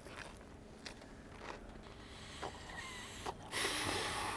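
A man chewing a big bite of crusty bread sandwich: faint, scattered mouth clicks, then about a second of loud rustling noise near the end.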